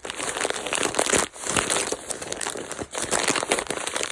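A mailing envelope being handled and worked open, crinkling and crackling continuously, with a short pause about a second in.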